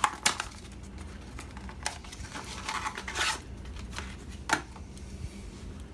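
Raspberry Pi 4's small cardboard box being opened by hand: a few sharp clicks and taps of the packaging, with a stretch of scratchy rustling and tearing about three seconds in.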